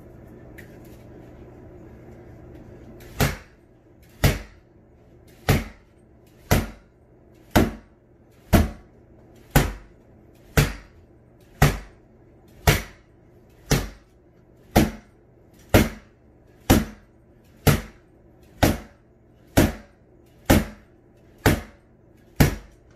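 Rattan SCA practice sword striking a padded Everlast freestanding punching bag, used as a pell: about twenty sharp whacks, roughly one a second, beginning about three seconds in.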